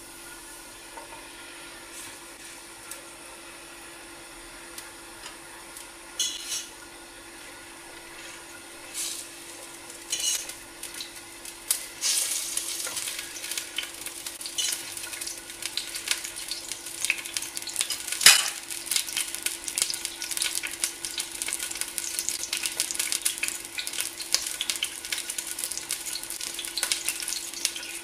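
Lamb shanks searing in hot oil in a stainless steel pot. It is fairly quiet at first with a few brief spatters, then from about twelve seconds in there is a steady crackling sizzle, with one sharp knock about eighteen seconds in.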